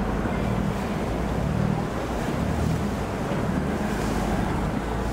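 Khlong Saen Saeb canal boat's engine idling at the pier: a steady low rumble with a wash of water and wind noise over it.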